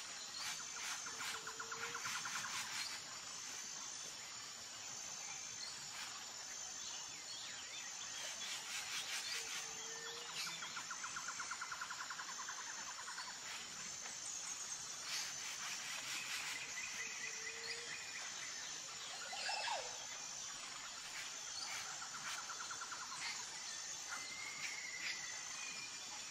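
Forest ambience: insects chirping steadily, with a high chirp repeating about once a second, and scattered bird calls and rapid trills over it.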